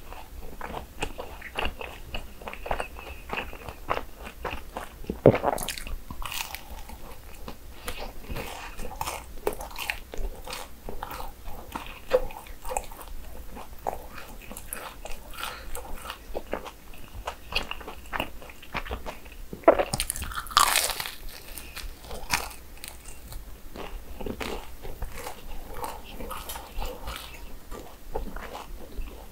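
Close-miked eating of fried churros: crisp crunching bites and chewing, a steady stream of irregular small crackles, with two louder moments about five seconds in and around twenty seconds in.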